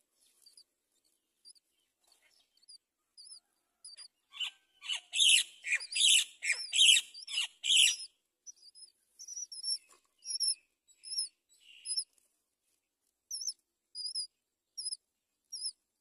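Bird calls at a great myna nest during a feeding: thin, high chirps repeating about twice a second, with a loud burst of harsh, rapid calls from about four to eight seconds in.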